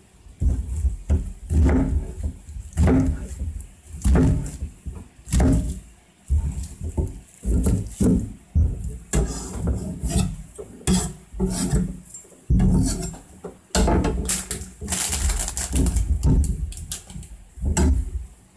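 Kitchen knife chopping napa cabbage on a cutting board: a long run of knocks as the blade cuts through the crisp leaves and hits the board, with the blade scraping the chopped pieces across the board partway through.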